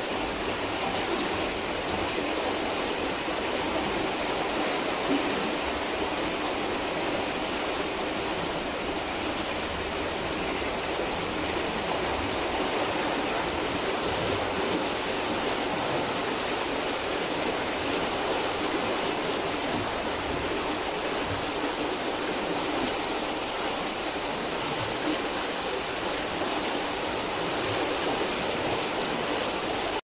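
A river flowing: a steady, unchanging rush of water.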